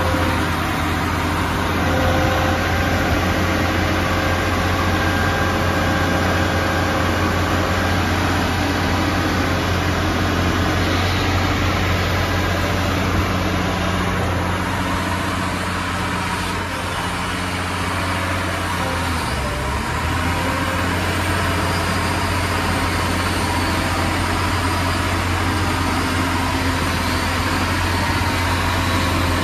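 Diesel engine of a Cat 6015B hydraulic excavator running steadily under load as it raises its boom and extender pipe: a deep, continuous hum with a brief dip about two-thirds of the way through.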